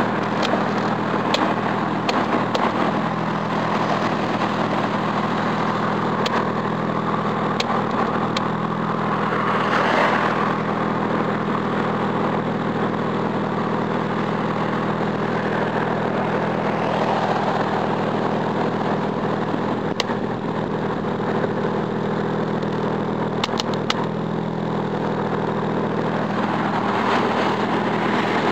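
Engine idling steadily, with a few short sharp ticks here and there; the owner suspects a misfire.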